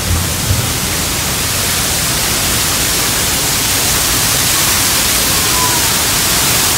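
Niagara's Horseshoe Falls pouring down just outside the tunnel portal behind the falls: a loud, steady roar of falling water and spray.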